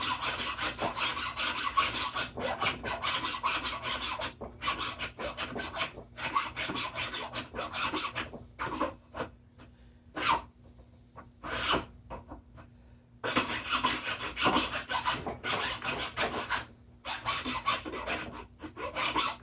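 Hand tool rasping back and forth in quick strokes, cutting a groove by hand. The strokes stop for a few seconds midway, apart from two single strokes, then start again.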